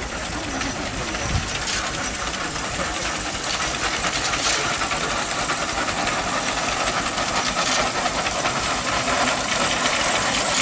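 Horse-drawn grain binder working through standing wheat, cutting and tying it into sheaves, its mechanism making a dense, rapid clatter that grows louder as it comes nearer.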